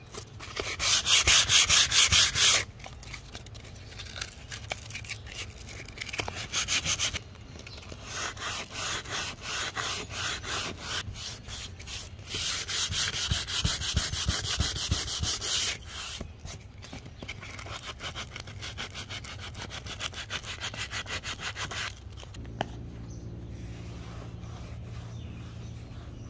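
Hand sanding with 100-grit sandpaper on dried Bondo body filler patched into a hollow-core door: rapid back-and-forth scratchy strokes in several spells, loudest near the start and in the middle. The sanding stops about 22 seconds in, leaving a low steady hum.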